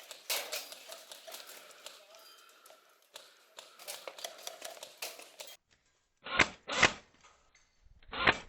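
Airsoft guns in a game: a run of rapid clicks and taps for about five seconds, then after a short gap two loud sharp cracks close together and a third near the end.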